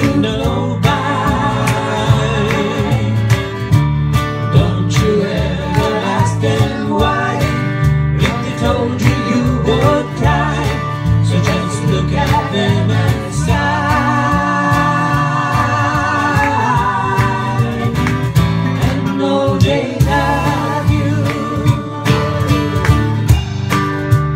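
Small live band playing a country-folk song: acoustic guitar and other plucked strings strummed steadily under voices singing together, with held, wavering sung notes about midway through.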